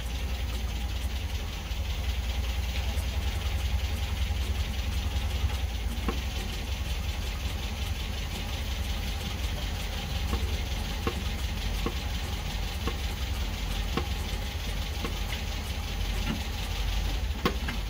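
MGB four-cylinder engine idling steadily, heard from inside the cabin, with a few sharp clicks at intervals over it.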